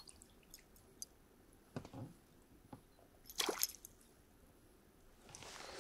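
Small pike hooked on a spinner thrashing at the water surface, with small splashes and drips and a louder splash about three and a half seconds in.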